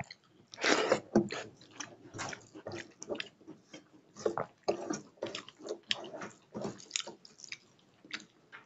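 Close-up eating sounds of a man chewing a mouthful of rice mixed with dal, eaten by hand: many irregular wet chewing clicks, loudest about a second in.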